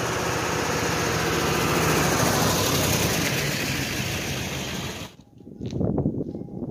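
Ford Super Duty pickup truck driving up and passing close by, its engine running loudly and steadily. The sound cuts off abruptly about five seconds in, followed by footsteps on pavement.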